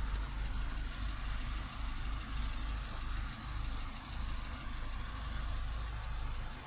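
Low steady outdoor rumble picked up by a handheld phone microphone. From about halfway in, a small bird chirps repeatedly, about two or three short high chirps a second.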